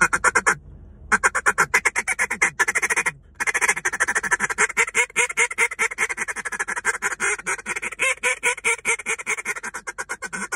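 Duck call blown in a continuous rolling feed chatter, a fast run of short notes, with hen cadences mixed in over it: the 'Refuge' feed chatter, meant to sound like many ducks on the water calling at once. The run breaks briefly twice in the first few seconds.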